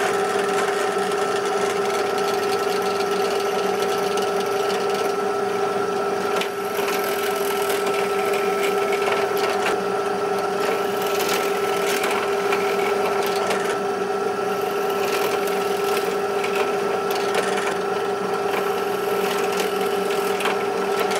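Bench drill press running steadily with a constant motor hum, its bit boring holes through two stacked hardwood boards into a sacrificial board beneath.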